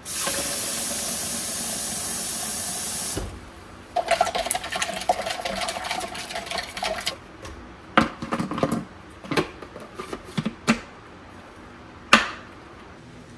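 Kitchen faucet running into a plastic chick-waterer cup for about three seconds, then shut off. A spoon then stirs sugar into the water, scraping and clinking against the plastic, followed by scattered taps and one sharp knock near the end as the plastic waterer base is fitted on.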